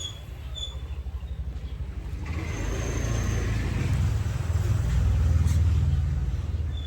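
A motorcycle passing by, its engine note growing louder to a peak about five seconds in and then fading. A few short bird chirps.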